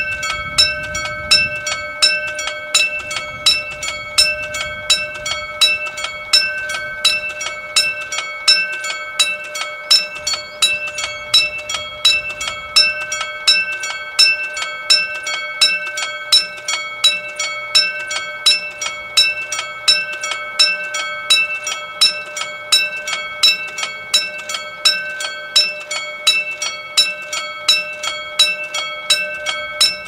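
Railroad crossing warning bell ringing continuously, with evenly spaced strikes over a steady ringing tone, while the crossing signal is active.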